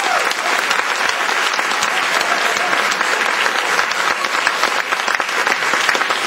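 Audience and cast applauding, a steady dense clapping that holds throughout.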